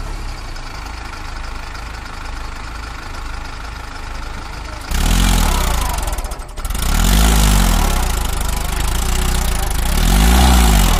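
Mahindra Arjun Ultra 555 tractor's diesel engine running as the tractor strains to pull its soil-loaded trailer out of deep mud. About five seconds in it gets louder and revs up and down three times.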